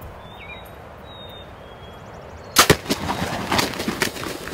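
Bow shot at a wild turkey tom: two sharp cracks in quick succession about two and a half seconds in as the arrow is loosed and hits. Then a rapid run of wing flapping as the struck bird thrashes in the grass.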